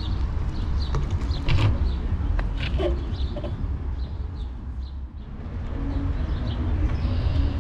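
Birds chirping and calling in short, scattered notes over a steady low rumble.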